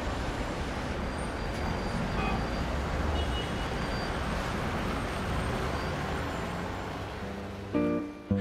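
Steady city traffic noise, a low rumble of road vehicles. Music begins near the end with a few held notes.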